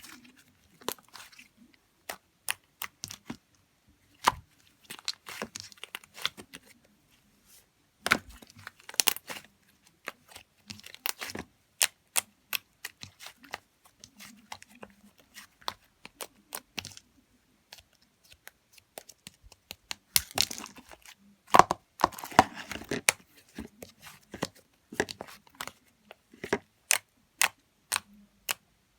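Irregular sharp clicks mixed with short bursts of crinkling, tearing noise, busiest a little past two-thirds of the way through.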